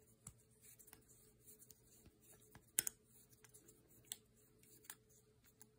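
Faint, scattered small clicks and taps of a Holosun EPS Carry red dot being handled and rocked on a Glock 48 MOS slide to check its fit. There is one sharper click about three seconds in. The optic sits loose on the slide with too much wiggle.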